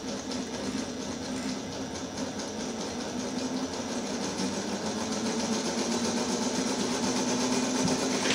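Model Stirling-engine helicopter running: the small hot-air engine and its spinning rotor make a fast, even mechanical clatter that grows gradually louder.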